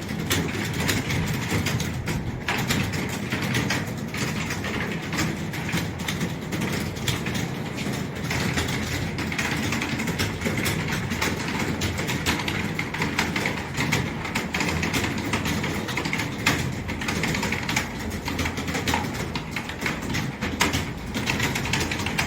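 Many computer keyboards clattering at once: a room full of people typing fast and steadily during a timed typing test, over a low steady hum.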